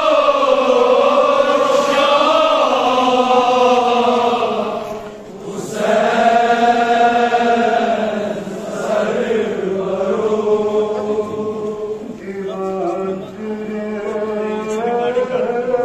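A man reciting a Kashmiri noha, a Shia lament, in a slow, chanted melody. He holds two long drawn-out phrases with a short breath about five seconds in, then sings shorter, stepping notes near the end.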